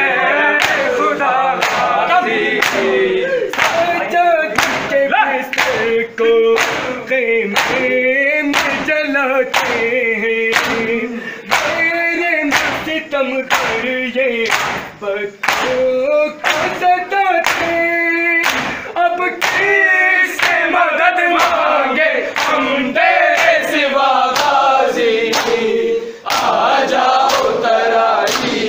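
Men's chorus chanting an Urdu nauha, a Muharram mourning lament, in unison, over a steady beat of matam: open palms slapping bare chests in time, a little over once a second.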